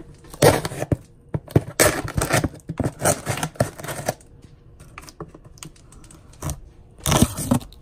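Knife blade slicing along the packing tape seam of a cardboard shipping box: a run of irregular scraping, tearing strokes. It then gives way to quieter scrapes and clicks of the box being handled, with a louder scrape near the end.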